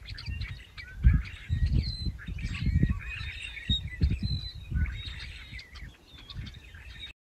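Small birds chirping and calling over irregular low rumbling, which is the loudest part; it cuts off suddenly just before the end.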